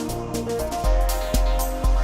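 Electronic background music with held synth notes; a heavy bass beat comes in about a second in, roughly two beats a second.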